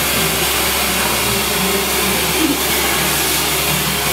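Hair dryer blowing: a steady, even rush of air with a low hum underneath.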